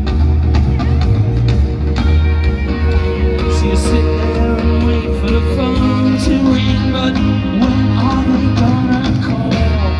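Live rock band playing on electric guitars and drums, heard loud through an outdoor festival PA from within the crowd.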